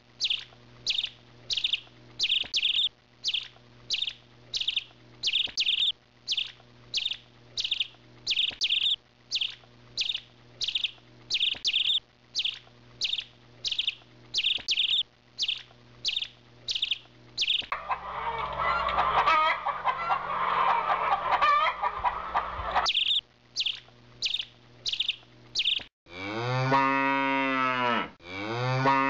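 Farmyard animal sounds: a bird chirps in a steady run about twice a second, then comes a busier stretch of mixed calls lasting about five seconds, then the chirping returns. After a sudden cut near the end, a cow moos twice, each moo rising and then falling in pitch.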